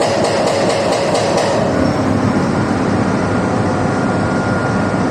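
Hydraulic breaker hammer on a Doosan 420 excavator pounding in a fast, even rapping of about five strikes a second, stopping a little under two seconds in. The excavator's diesel engine keeps running after the hammering stops.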